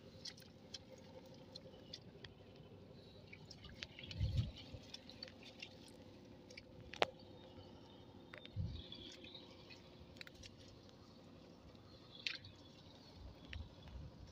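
Quiet outdoor ambience: faint rustling with scattered light clicks, and two soft low thumps about four and eight and a half seconds in.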